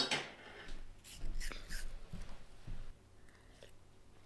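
A sharp knock, then a few seconds of short rustling and scraping noises, like things being handled close by.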